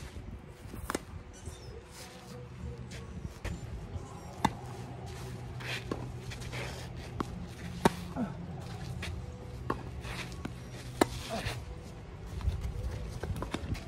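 Tennis rally: racquet strings striking a tennis ball with sharp pops, the loudest about every three seconds and fainter ones between, over the players' footsteps on the court.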